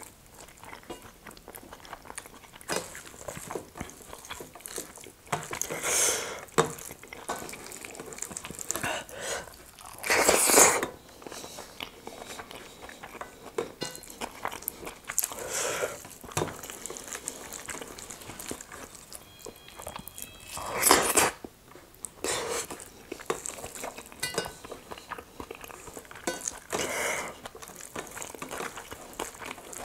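Fingers mixing rice with nettle dal and scraping a stainless steel plate, with close-miked chewing and mouth sounds. Two louder noises about a second long come about a third and two-thirds of the way through.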